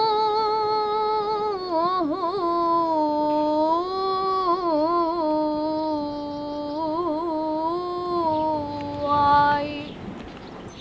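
A woman's voice singing unaccompanied in Arabic, one long drawn-out line with quick ornamental wavers. The pitch drops a step about two seconds in and again near the end, and the voice stops shortly before the end.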